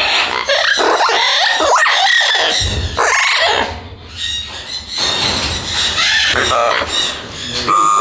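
Blue-fronted Amazon parrot vocalising: a run of squawks, squeals and speech-like chatter.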